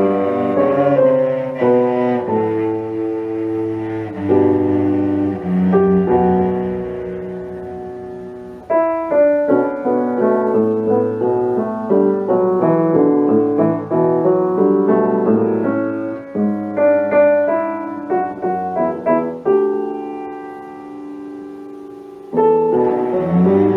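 Classical cello and piano duo playing a cello sonata: long held notes at first, then from about nine seconds in a busy passage of quick piano notes under the cello, with a loud new entry near the end.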